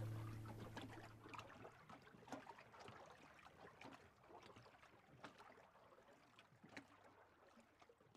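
A sustained acoustic guitar chord fades out over the first second or so, leaving faint lapping of lake water with small irregular clicks and splashes.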